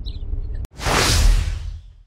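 A low outdoor background rumble, then after a brief cut about two-thirds of a second in, a whoosh transition sound effect swells up and fades away.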